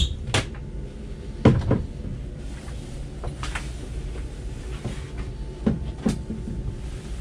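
Wooden cabin door on a boat being opened and handled, with a handful of knocks and latch clicks at the start, about a second and a half in, and again near the end.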